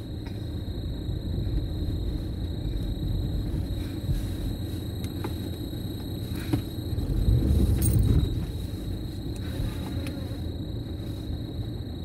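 Car engine running and revving, heard from inside the cabin, as the car tries to pull through deep snow that has buried nearly half the tyre. The low rumble swells loudest about seven to eight seconds in.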